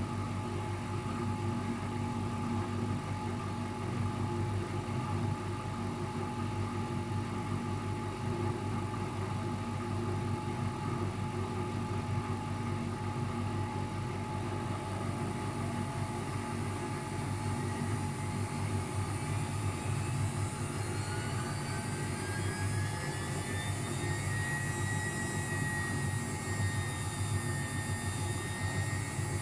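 Luxor WM 1042 washing machine in its spin cycle with an unbalanced load: a steady low drumming hum under a motor whine that rises in pitch about two-thirds of the way through and then holds steady as the drum speeds up toward 800 rpm.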